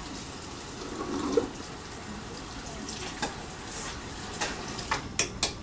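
Water running from a tap into a bathroom sink as a steady hiss, with a few sharp clicks near the end.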